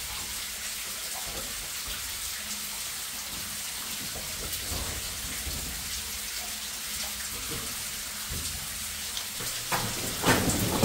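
Steady hiss of trickling, dripping water running down the mine walls, with faint scuffs and knocks as a climber moves over rock and old timbers, and a couple of louder bumps near the end.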